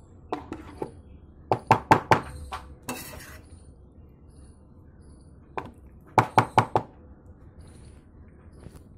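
A spoon knocked against a dish while serving macaroni: two quick runs of about four sharp knocks, a second and a half in and again about six seconds in, with a few lighter clinks. A short scraping rustle comes about three seconds in.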